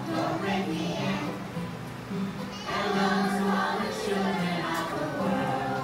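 A group of preschool children singing a song together, with music accompanying them.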